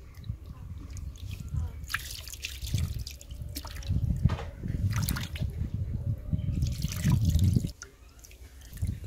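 Water splashing and dripping as a hand rubs and rinses fish pieces in a clay bowl of wheat-flour water. The splashing stops abruptly about a second before the end.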